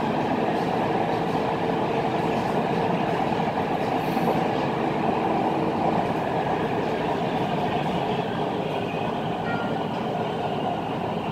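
Cabin noise of a Kuala Lumpur MRT train running on an elevated track: a steady rumble of wheels on rail with a faint steady hum.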